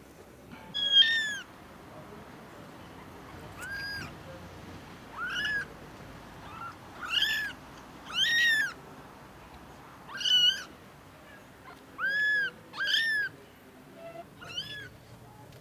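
Newborn kittens mewing: about ten short, high-pitched mews, each rising and falling, at irregular intervals.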